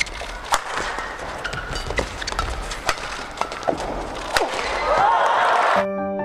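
Badminton rally in an arena: sharp racket hits on the shuttlecock every second or so, short shoe squeaks on the court, over steady crowd noise that swells about five seconds in. Soft piano music cuts in just before the end.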